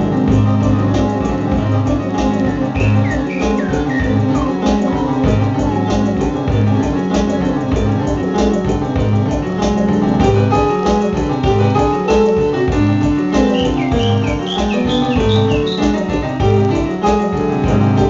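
Live instrumental band playing: piano and keyboard chords over drums and a pattern of repeating low notes. Short falling chirp-like glides come in high above the music a few seconds in and again near the end.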